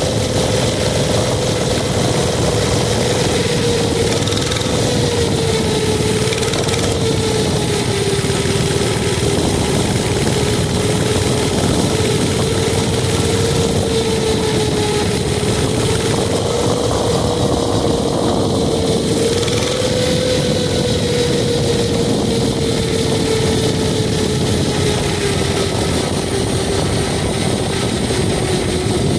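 Mini bike engine running steadily under way, its pitch drifting gently up and down with the throttle, over a constant rushing noise.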